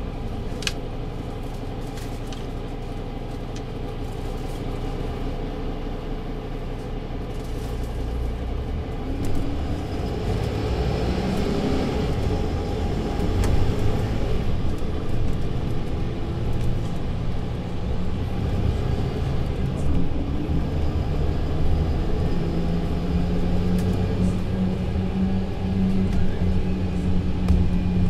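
Mercedes-Benz Citaro C2 LE city bus running on the road, its diesel engine and Voith automatic gearbox heard from inside as a steady rumble. The rumble gets louder about nine seconds in, and a steady hum rises out of it in the last few seconds.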